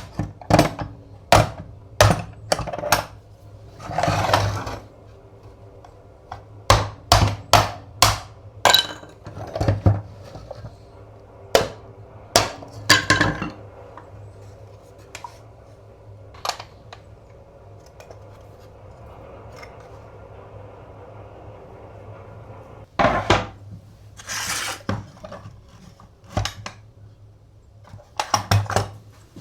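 Metal parts of an antique coffee grinder being taken apart with hand tools: a string of sharp metallic clinks and knocks, with a few short scraping sounds among them and a quieter lull in the middle.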